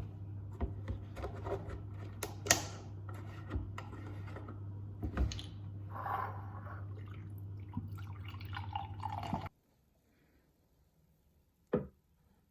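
Scattered clinks, taps and dripping liquid over a steady low hum, as of dishes being handled; everything cuts off suddenly about nine seconds in, leaving near silence broken by one sharp click.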